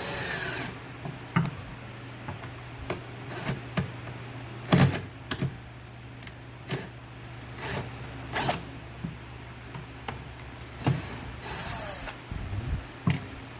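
Power drill driving small screws into drawer wood: a short drill run at the start and another near the end, with scattered sharp knocks and clicks of wood and screws being handled in between, over a steady low hum.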